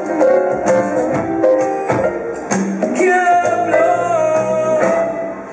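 Recorded music played loud through a club sound system, a melody over a steady percussion beat, dropping in level near the end.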